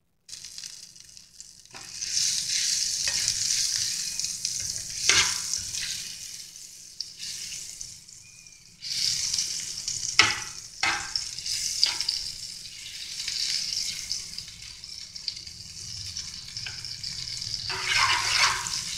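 Butter sizzling as it melts in a small saucepan on a gas burner, stirred with a metal spoon that clicks against the pan a few times. The sizzle grows louder about two seconds in and again about nine seconds in.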